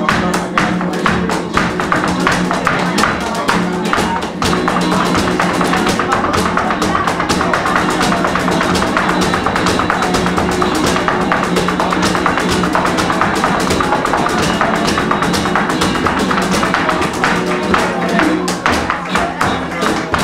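Live flamenco music: a flamenco guitar strumming and picking, with a stream of quick sharp taps from a cajón and a dancer's heeled footwork.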